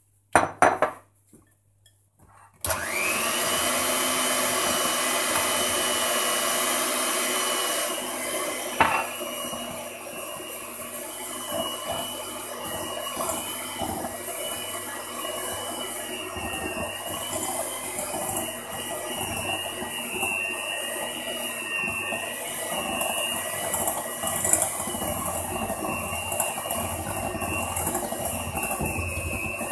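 Electric hand mixer starting up about two and a half seconds in and running steadily with a high whine, its beaters working flour and cocoa into whipped eggs and sugar for a cocoa sponge batter. A single knock sounds about nine seconds in, and after it the mixer runs a little quieter.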